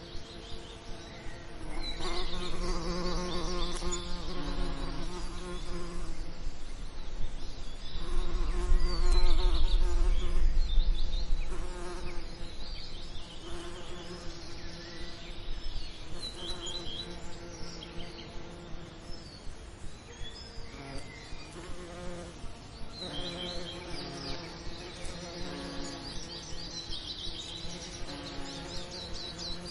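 Bees buzzing, one passing close and loud several seconds in, then fading back, with other insects and birds chirping and singing.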